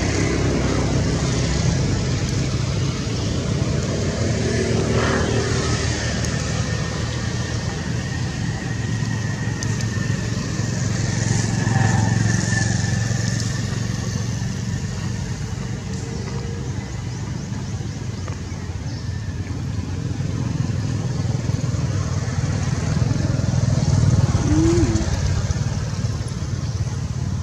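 Steady low rumble of motor traffic, motorbikes among it, swelling about halfway through and again near the end as vehicles pass.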